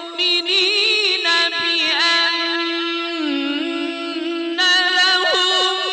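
A man's voice in mujawwad (melodic, ornamented) Qur'an recitation, holding long drawn-out notes with quick wavering ornaments.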